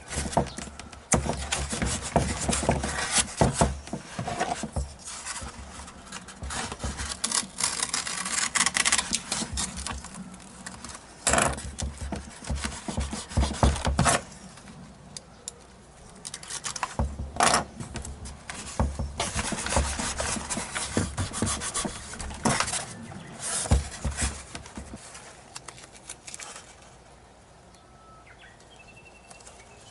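Hands rubbing and pressing tape onto a foam model airplane wing, with repeated short bursts of tape being pulled and smoothed down, patching the damaged wing. Quieter near the end.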